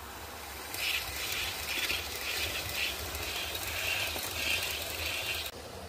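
OO gauge model trains running on the layout's track: a rattling whir of wheels and motors that starts suddenly about a second in and cuts off sharply shortly before the end, over a low steady hum.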